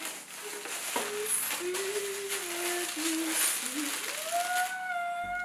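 Tissue paper rustling and crinkling as it is pulled out of a gift box. Near the end the rustling stops, and a long sliding tone comes in and holds.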